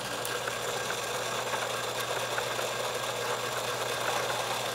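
Small electric motor of a motorized egg-decorating spinner running steadily, turning an egg while it is painted, with a steady hum and a few light ticks.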